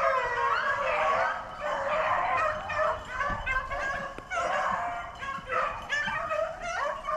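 A pack of beagles baying on a rabbit chase, several dogs giving tongue at once in an overlapping chorus with brief lulls.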